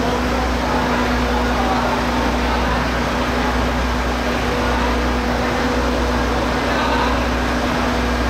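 Heavy diesel engine running steadily, a constant low rumble with a steady hum, as the crane hook is moved. Faint voices in the background.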